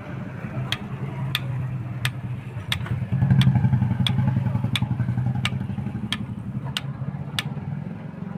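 Sharp metallic clicks at an even pace, about one every two-thirds of a second, from the crank of a Hero HF Deluxe engine being worked by hand, each click the play in a worn-out crank rod (connecting-rod) bearing. A steady low engine-like hum runs underneath and grows louder about three seconds in.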